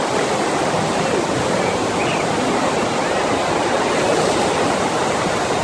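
Steady rushing water from a FlowRider sheet-wave machine, a thin sheet of water pumped at speed up its padded slope.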